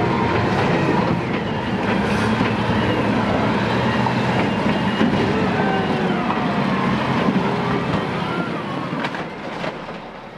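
Caterpillar wheel loader's diesel engine running hard as the machine works through flood debris, with high wavering squeals over the engine noise. The sound fades away in the last second or so.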